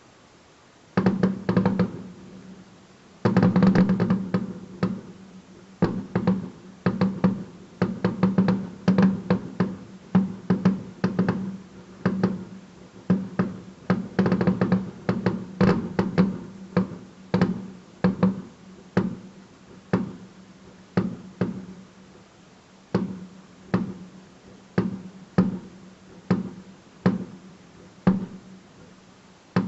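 Fireworks exploding in a long series of sharp bangs. They come thick and overlapping at first, then thin out to about one bang a second.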